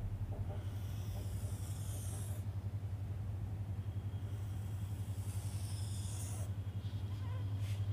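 Marker pen squeaking and scratching across a whiteboard in two long strokes, drawing a circle, over a steady low hum.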